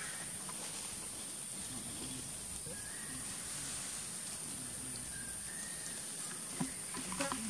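Steady high-pitched drone of insects, with two faint short whistled calls in the middle and a few sharp clicks near the end.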